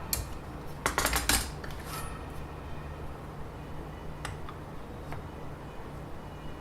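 Metal clinks and clatter as a metal square is handled and set against the device on a desk. There is a quick cluster of clinks about a second in, then a few faint ticks.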